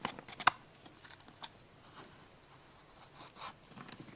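Handling noise from a clear plastic box and a thin wire being pulled through it: a few sharp clicks and taps in the first half second, the loudest about half a second in, then light scattered ticks and a brief rustle about three seconds in.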